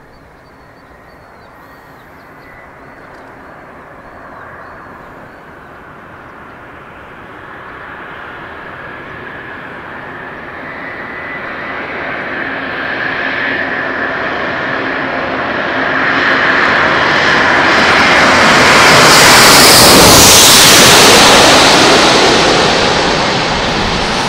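A twin-engine jet airliner on final approach, its engines' whine growing steadily louder as it nears, then passing low directly overhead with a loud roar that peaks about twenty seconds in.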